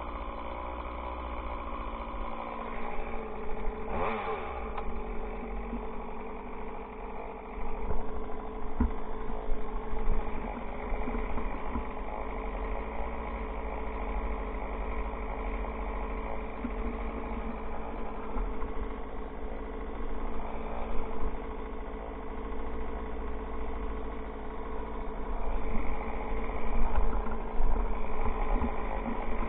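Chainsaw engine running steadily at speed, its pitch dropping briefly about two to three seconds in and then holding.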